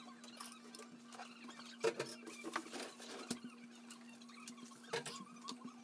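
Ceramic plates and dishes being picked up and stacked while the table is cleared: a handful of light clinks and knocks with small scraping and rustling between them. A steady low hum runs underneath.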